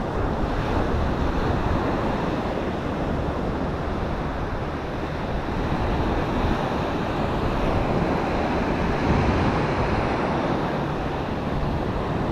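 Surf breaking and washing up a sandy beach in a steady wash, with wind rumbling on the microphone.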